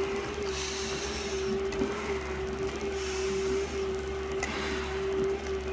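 Firefighter breathing through an SCBA facepiece and regulator: a hiss of air with each breath, every two to three seconds, over a steady machine hum.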